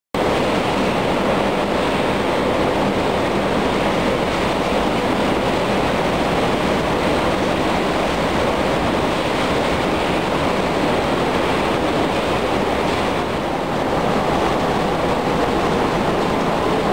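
Quarry washing machine running on rubber suspension mounts: a steady, loud rush of water and material with no distinct knocks.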